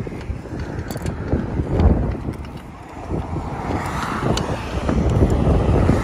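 Road traffic going past close by, swelling about four seconds in as a vehicle passes, with wind buffeting the microphone and a few light clicks.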